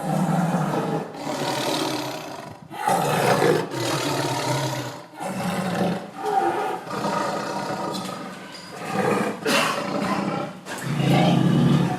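Angry tiger roaring repeatedly: a run of harsh roars, each one to two seconds long, with barely a pause between them.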